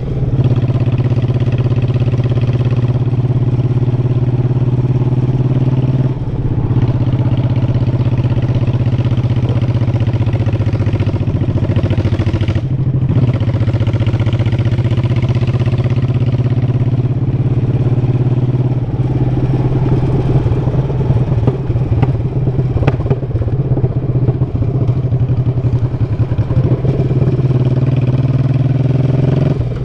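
V-twin motorcycle engine running under way, heard from on the bike with a steady low note that briefly breaks twice, about six and thirteen seconds in, and turns rougher in the second half.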